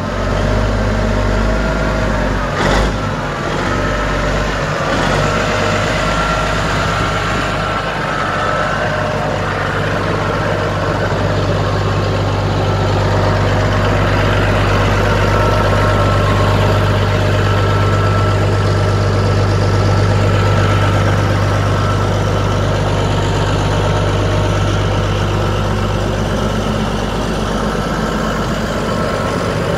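1976 Kenworth K100 cab-over truck's diesel engine idling steadily, with a single short knock about three seconds in.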